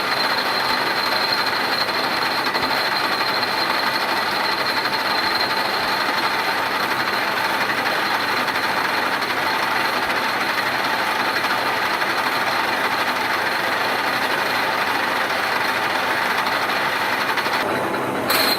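K62 screw-cutting lathe running and turning a workpiece: a steady, noisy whir with a thin high whine over it. Near the end the sound drops away and there is a sharp click.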